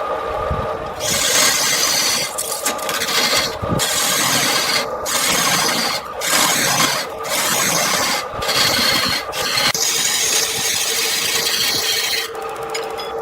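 Wood spinning on a wood lathe being worked with a tool, giving a loud scraping hiss in repeated passes with short breaks between them, over the lathe's steady motor hum.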